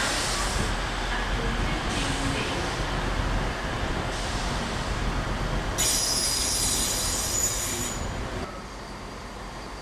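Passenger train running past on the tracks with a steady rumble. A high wheel squeal starts about six seconds in and lasts about two seconds. The sound drops away suddenly near the end as the train clears.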